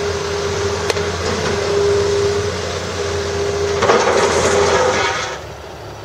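Tracked excavator running on a demolition site: a steady engine and hydraulic whine under a loud, even hiss, with a couple of sharp knocks. It cuts off about five seconds in.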